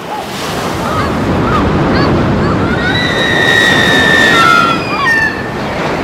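Surf breaking and washing up a pebble beach in a steady rush. Short high chirps and whistles sound over it, with one longer steady whistle about three seconds in.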